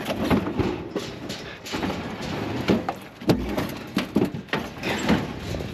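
A sheet-metal appliance being heaved and shoved onto a trailer's checker-plate steel floor: a string of metal knocks, clanks and scrapes, with a heavy thump about three seconds in.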